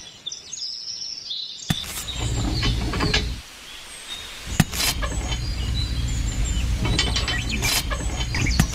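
Low chugging of a small diesel engine. It starts about two seconds in, stops for about a second, then runs again, with birds chirping in the background and a few sharp clicks.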